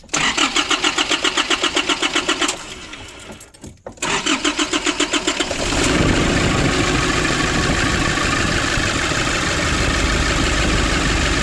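Diesel engine of a 2005 Nissan Urvan being started. The starter cranks in a fast rhythm for about two and a half seconds and stops, cranks again about four seconds in, and the engine catches near six seconds and settles into a steady idle. This is the test start after a leaking fuel-line pipe was tightened to cure slow starting.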